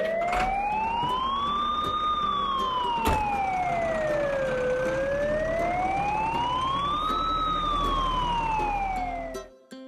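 Police siren in a slow wail, its pitch rising and falling twice, cutting off suddenly near the end.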